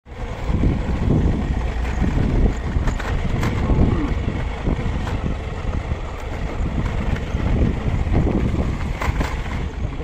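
Motorcycle being ridden along a dirt track: engine running under heavy wind buffeting on the microphone, with a few sharp knocks and rattles.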